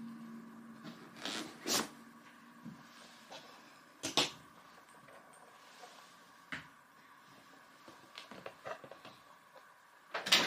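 Scattered knocks, taps and rustles of belongings being handled and packed into a backpack, with a sharp knock about four seconds in, a quick run of small taps later on, and the loudest knock right at the end.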